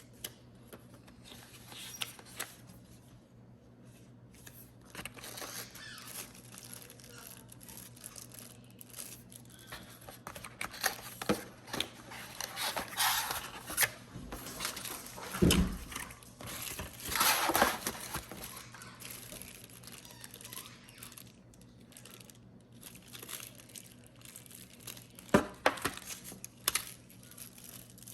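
Packaging being handled and opened: wrapping crinkling and tearing in irregular bursts, with scattered clicks and a few sharper knocks from the box and its contents.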